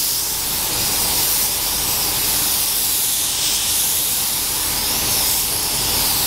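Pneumatic paint spray gun hissing steadily while spraying primer onto a car body, its hiss swelling and easing a little as the gun moves.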